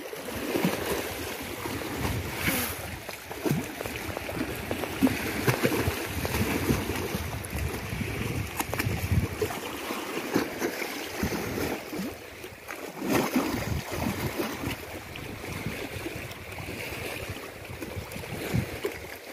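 Small waves lapping and splashing against stone steps at the water's edge, with wind buffeting the microphone in uneven gusts.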